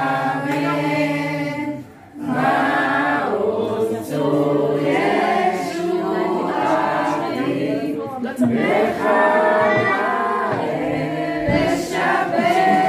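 A family group singing a Hanukkah candle-lighting song together, in phrases with short breaths between them.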